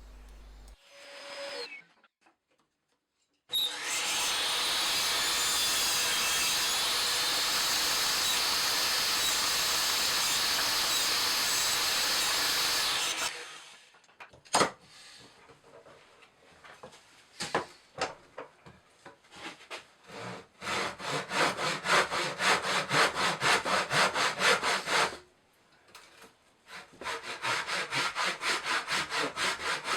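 Timber from an old door being cut: a power tool runs steadily for about ten seconds, then stops. After a few scattered knocks, a hand saw cuts in fast, even strokes, about four a second, pausing briefly and starting again near the end.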